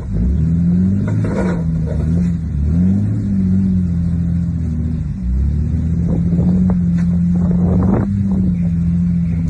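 An off-road 4x4's engine revving, its pitch rising and falling several times and then holding steadier under load, with a scatter of short sharp knocks in the second half.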